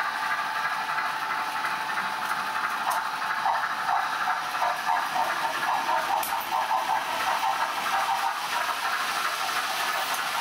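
Model steam locomotive sound: the H0 Big Boy's sound decoder plays steady steam hiss and rhythmic chuffing through its small speaker as the locomotive runs with its freight train.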